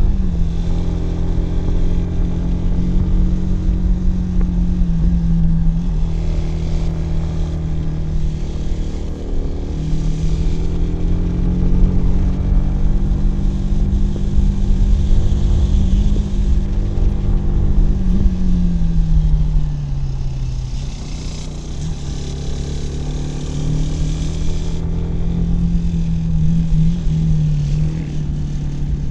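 Kawasaki W175's air-cooled single-cylinder engine and exhaust running under way on the road. The engine pitch mostly holds steady, drops for a couple of seconds about two-thirds of the way through, then settles again.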